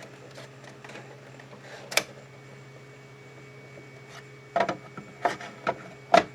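A steady low machine hum, with light clicks and knocks: one about two seconds in and a quick run of several in the last two seconds.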